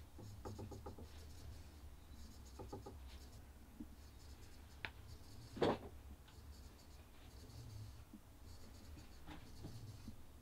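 Faint creaking, scratching and small clicks as a self-yew longbow is drawn on a wall tiller, with one louder knock a little past halfway.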